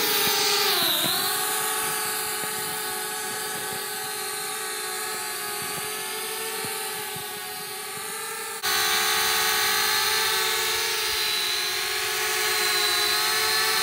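Flitt foldable selfie quadcopter's four small motors and propellers buzzing with a steady whine as it lifts off and hovers, the pitch dipping briefly about a second in. At about nine seconds the buzz jumps suddenly louder and closer.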